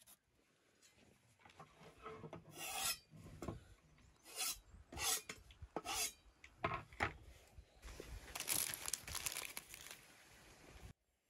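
Spice-coated pieces of lamb tail fat being handled on a foil-lined tray: a string of irregular rubbing and rustling scrapes, thickest near the end, that cuts off suddenly.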